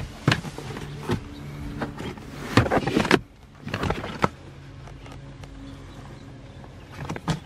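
Rubber floor mat being handled and pressed down into a minivan footwell: a series of knocks and scuffs, the busiest about three and four seconds in, over a steady low hum.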